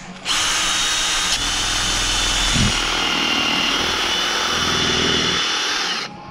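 Electric drill running steadily under load as a bit bores into a stuck bolt, starting just after the beginning and stopping shortly before the end. The bolt is being drilled out because the extractors would not bite.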